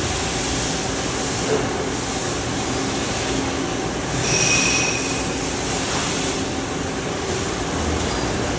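Hardinge Quest 851 CNC lathe running, a steady mechanical hum and hiss, with a brief high-pitched whine about four seconds in.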